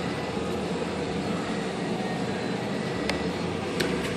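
Steady background hum and hiss of the workshop, with two short light clicks about three and four seconds in as parts are handled on the bench.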